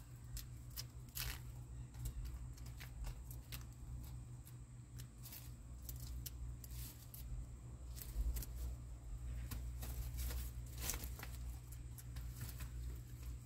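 Hens pecking at and tearing fresh leaves: irregular, quick clicks and snips of beaks on foliage, with a few louder tears.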